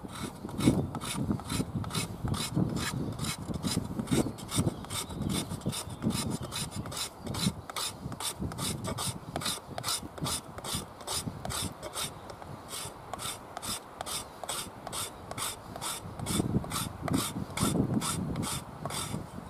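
Edge of a Cold Steel Special Forces shovel scraping rapidly along a wooden stick to raise fine shavings, rasping at a steady two to three strokes a second.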